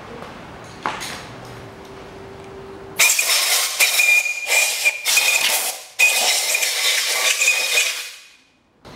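Compressed-air blow gun blasting the engine block's deck clean: a loud hiss with a steady whistling tone. It starts about three seconds in, pauses briefly about six seconds in, then runs again and fades away near the end.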